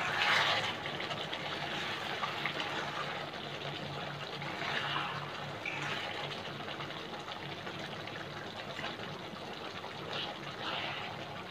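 Thick tomato gravy simmering in a kadhai while a metal ladle turns whole baby brinjals over in it: a steady low bubbling with soft wet stirring.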